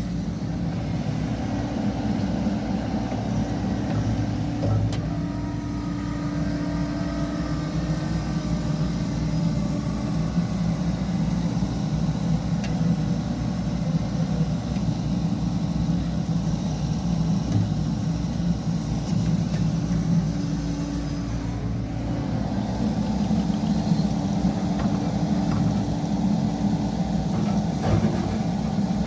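Hyundai HX65 excavator's diesel engine running steadily, its note easing off and picking up again a couple of times.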